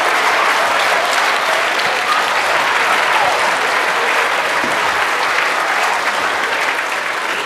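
Large audience clapping, a dense steady applause that eases off gradually near the end.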